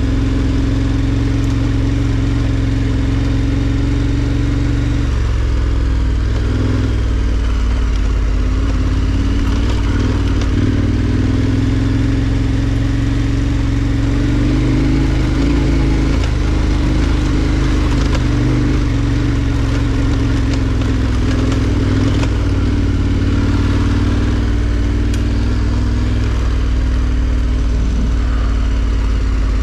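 KTM 1290 Super Adventure R's V-twin engine pulling at low revs up a rough dirt track, the throttle rising and easing a little, with scattered knocks and rattles from the bike over the rocks and ruts.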